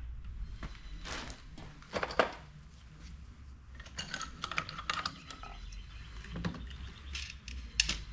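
MEC Grabber shotshell reloading press being worked by hand: a series of sharp metal clicks and clunks, the loudest about two seconds in and near the end, with a scratchy rattling stretch in the middle as hulls are handled and the press cycles.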